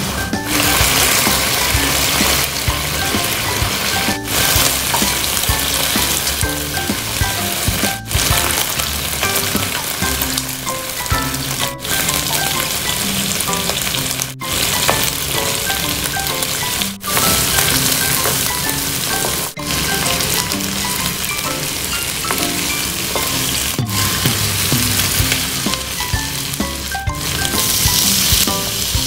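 Chicken pieces frying and sizzling in oil in a wok, with stirring now and then. The sizzle drops out briefly every few seconds.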